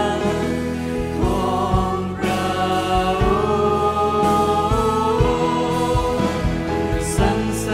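A live worship band playing a Thai-language praise song: a male and a female vocalist sing together over electric guitar and a full band, with a steady drum beat underneath.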